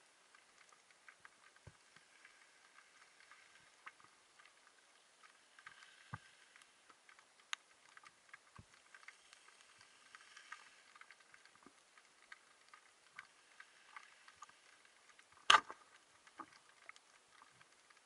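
Faint underwater ambience heard through a camera housing, with scattered small clicks and crackles and one sharp, much louder knock about fifteen seconds in.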